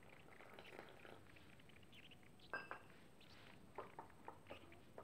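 Near silence, with a few faint clicks and scrapes from a plastic spoon stirring damp flour-and-spice batter in a glass bowl, the first about halfway through and a cluster near the end.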